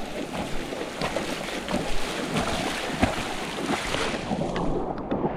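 Swollen river in flood, rushing and splashing, with rain falling and splashes from wading through the current. Near the end the high hiss drops away and the water sound turns duller.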